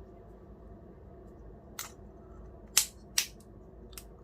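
Camera mount accessory being snapped onto a small action camera: four short plastic clicks, the loudest two close together about three seconds in.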